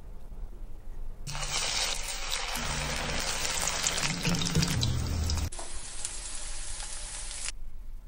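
Battered onion rings sizzling in hot oil in a frying pan: a dense, steady hiss with small crackles that starts about a second in, changes at an edit partway through, and stops a little before the end.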